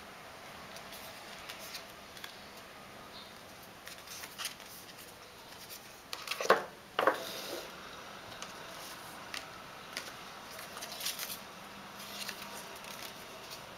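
Cardboard and paper packaging being handled: the iPhone 3G box's black cardboard insert and documentation folder slid out and opened, with scattered light scrapes and taps. Two louder scrapes come close together about halfway through.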